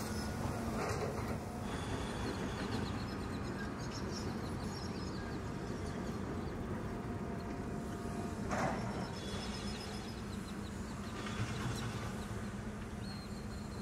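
Steady low machinery hum of a construction site with a single knock about two thirds of the way through, and faint high chirping in the background.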